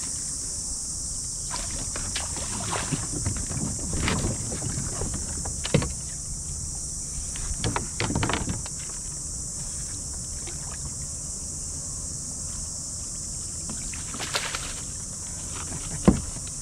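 Water splashing and sharp knocks against the kayak as a hooked fish is fought close to the boat, in scattered bursts with the loudest one near the end. A steady high insect buzz runs underneath.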